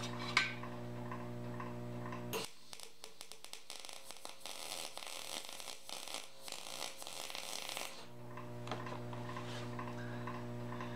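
Lincoln SP250 MIG welder running a short test bead on sheet metal with 0.023 wire. The arc crackles and sputters steadily for about five and a half seconds, starting about two and a half seconds in. A steady electrical hum is heard before and after the arc.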